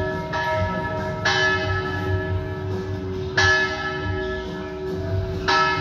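Church bells in a brick bell tower ringing, struck about every two seconds, with the hum of each strike ringing on under the next.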